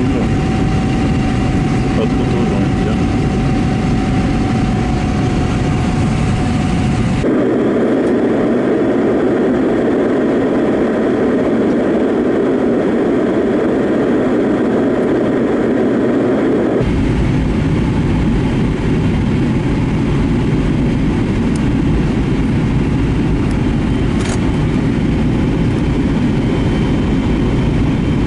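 Steady jet airliner cabin noise in flight, a loud, even rush with the engines running. Its tone changes abruptly about seven seconds in, going thinner and mid-pitched, and changes back shortly after the middle.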